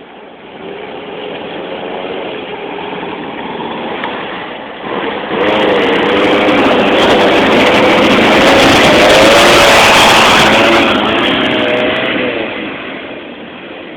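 A classic trials car's engine revving as it is driven up a trial section. It grows louder, swells suddenly about five seconds in and is loudest in the middle, its revs rising and falling, then fades away near the end.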